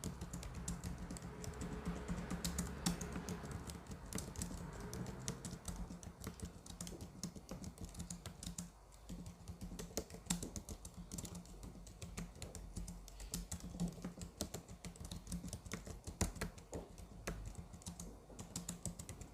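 Typing on a computer keyboard: a fast, continuous patter of key clicks, with a low steady hum underneath.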